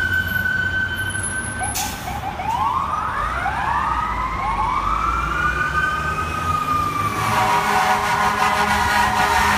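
Fire apparatus sirens and air horn: a steady high siren tone, then several quick rising whoops and a long falling wail. From about seven seconds in, a long continuous air horn blast sounds over the low rumble of the rigs' engines and traffic.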